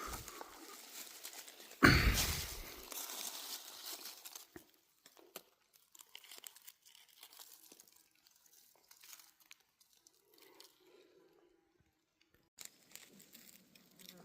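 Dry leaf litter crunching and rustling as it is handled or stepped through, with one loud close crunch about two seconds in. Then only sparse, faint crackles until the rustling picks up again near the end.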